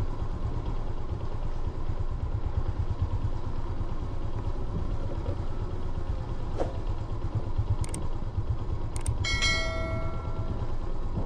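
Steady low rumble of a moving vehicle, with a few sharp clicks and a short pitched tone about a second long near the end.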